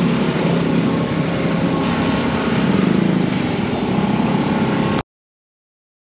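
Motor vehicle engine running steadily close by, cutting off suddenly about five seconds in.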